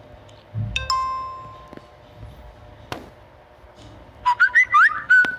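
Phone notification sounds previewed one after another in the Zedge ringtone app: a single electronic beep-like tone about a second in that rings on briefly, a click about three seconds in, then a quick warbling, whistle-like jingle of rising and falling notes near the end.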